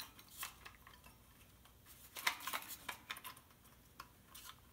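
Faint clicks and scrapes of a tool working at the seam of a BioLite CampStove's plastic housing as it is pried open, with a cluster of sharper clicks about two seconds in.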